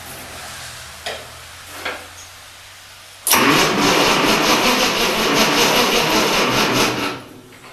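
Two light clicks, then a Ford 8N tractor's engine cranking on its starter motor for about four seconds without catching before it stops. Its fuel valve is turned off.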